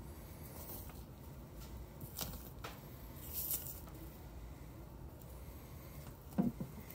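Feathered skin being pulled and peeled by hand off a Canada goose's breast meat: a few short, soft rustles and squishy tearing sounds, with a dull knock near the end.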